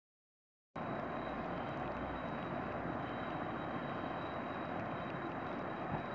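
Boeing 747-200's four jet engines running as the airliner taxis on a wet runway: a steady rushing noise with a thin, steady high tone above it. It starts abruptly just under a second in.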